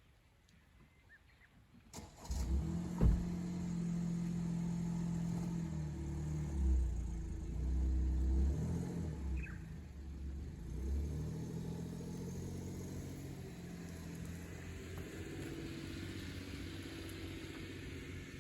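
Honda N-VAN's three-cylinder engine starting about two seconds in, just after a click, then running steadily; its pitch shifts up and down a few times in the middle before settling.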